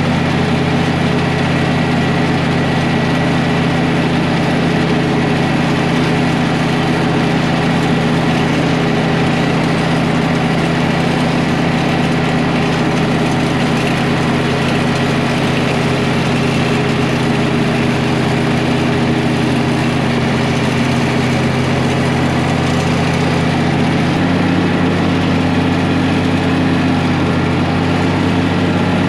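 A vehicle's engine running steadily while driving, with a step change in its pitch about 24 seconds in.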